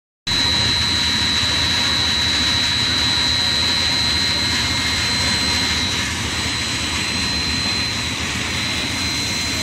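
Snack-food extrusion line machinery running steadily: a continuous mechanical noise with a high, steady whine on top.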